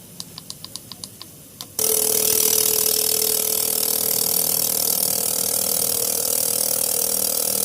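Toyota 4A-FE fuel injectors clicking about six times a second on an injector test-and-cleaning machine. About two seconds in, a loud, steady hiss with a low hum cuts in suddenly as the machine starts its cleaning run.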